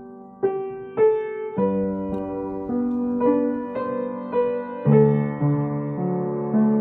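Background music: piano notes struck about twice a second in a slow, even melody.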